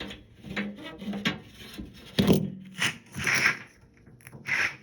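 A dehumidifier's cover and parts being handled and fitted by hand: a series of knocks, clatters and scraping rubs, the loudest knock about two seconds in.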